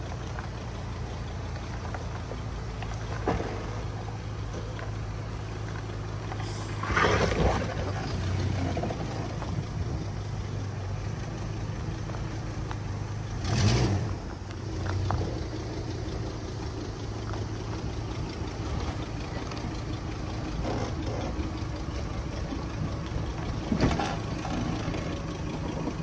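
Hummer H3 engine running at a slow crawl with a steady low drone as the truck eases down a rocky trail. A few louder thumps break in, the biggest about seven seconds in, halfway through and near the end.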